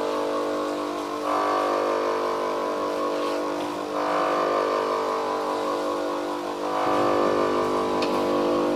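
Bench grinder running steadily while an HSS lathe tool bit is pressed against the wheel to grind its side angle, the grinding swelling each time the bit goes back onto the wheel, about every three seconds.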